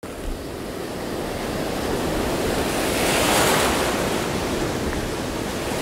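Ocean waves washing, a steady rush that swells to a peak about halfway through and then eases.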